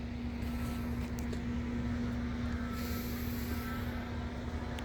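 A heavy diesel engine running steadily in the background, a low, even drone with one constant hum in it.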